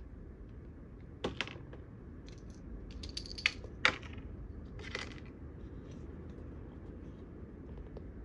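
A few light clicks and taps of hard plastic toys being handled, a plastic ice-cream cone cup and a plastic play knife, scattered through the first five seconds over a faint hiss.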